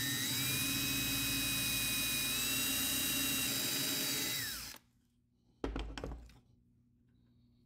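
Handheld power drill running steadily as it bores a hole into a small wooden fishing lure, its whine rising slightly in pitch, then winding down and stopping after about four and a half seconds. A brief clatter follows about a second later.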